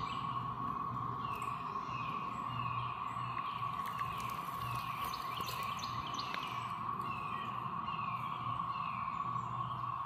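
Steady, even drone of a chorus of 13-year periodical cicadas of the Great Southern Brood. Over it a songbird repeats a quick falling chirp about twice a second.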